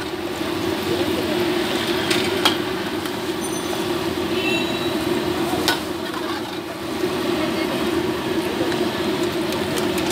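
Battered potato chops deep-frying in a large pan of oil, the oil bubbling and sizzling steadily over a low steady hum, with a couple of sharp clicks, one about two and a half seconds in and one near six seconds.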